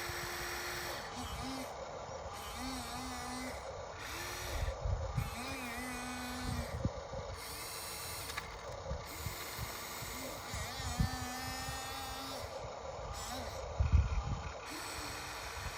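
Radio-controlled excavator's motors whining in short runs, each spinning up to a steady pitch, holding and dropping away as the machine moves. A few low thumps come between them, the loudest about 14 seconds in.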